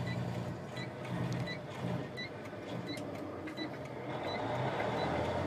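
Truck engine heard from inside the cab, its drone dropping away about two seconds in during a downshift to fourth gear, with road noise growing toward the end. A faint high electronic pip repeats about twice a second throughout.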